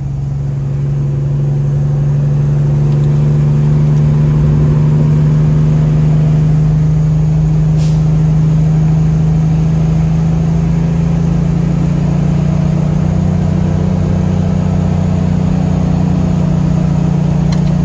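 Truck engine running steadily under way, heard from inside the cab as a steady low drone whose pitch rises slightly about ten seconds in.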